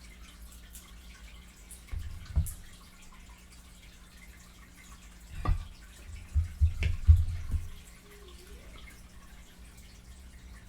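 Close-miked chewing and wet lip smacking while eating fried chicken: a short cluster of smacks about two seconds in, then a denser run from about five and a half to seven and a half seconds in.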